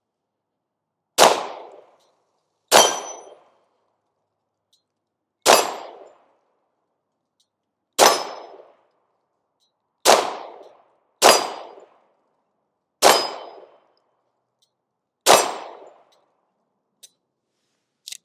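Bear Creek Arsenal BC-102 Grizzly 9mm pistol being fired: eight shots at an uneven pace, each with a short ringing echo, followed by a couple of faint clicks near the end.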